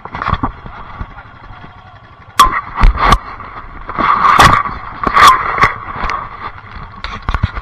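Off-road vehicle engine revving in loud, irregular bursts, with sharp knocks among them, the bursts getting heavy about two and a half seconds in.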